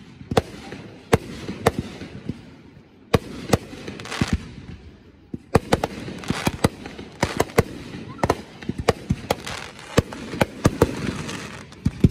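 Aerial fireworks bursting: a string of sharp bangs, a few at a time at first, then from about five and a half seconds in a quick run of bangs and crackling pops.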